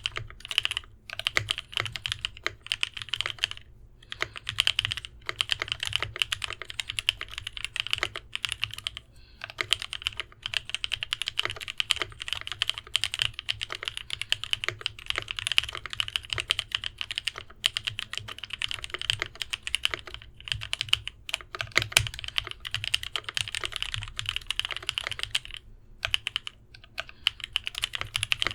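Continuous fast typing on an Idobao ID80 custom mechanical keyboard with lubed Novelkeys Cream linear switches, fitted with its sorbothane-lined aluminum bottom plate: a dense stream of keystroke clacks broken by a few brief pauses.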